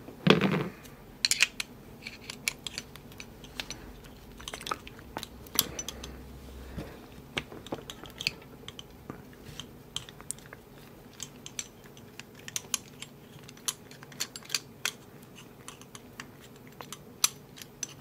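Screwdriver working the bolt inside a steel Kryptonite padlock body: scattered small metallic clicks, taps and scrapes of the tip and the handled lock, with a louder handling knock at the start.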